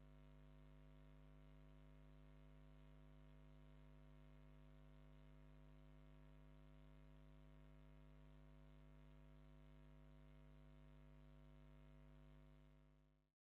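Faint, steady electrical mains hum: a low buzz with a ladder of overtones and a little hiss, fading out in the last second.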